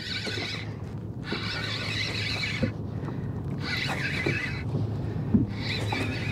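Spinning fishing reel cranked in short spurts, whirring each time the handle turns, as a hooked fish is reeled in. A steady low hum runs underneath.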